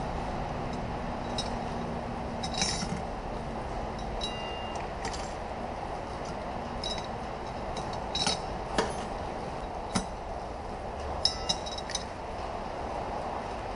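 Light metallic clinks and taps, a handful of them at uneven intervals, as tools and metal automatic-transmission parts are handled, over a steady background hum.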